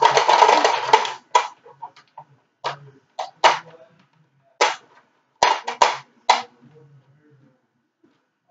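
Hard plastic parts of a Nerf blaster being handled and fitted together: a short rustling burst at the start, then a scatter of sharp plastic clicks and knocks.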